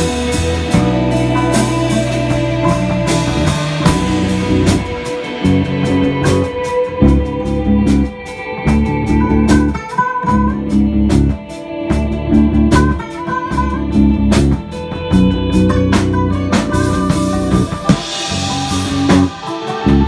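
Live instrumental rock jam: electric bass holding low notes in a chopped rhythm under electric guitar and cigar-box guitar lines, with a drum kit keeping time with frequent cymbal and drum hits.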